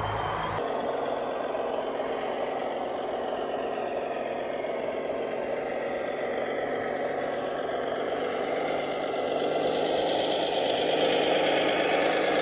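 Radio-controlled construction model running: a steady mechanical whir of small motors and gears with some rattle. The sound changes abruptly just under a second in and grows a little louder near the end.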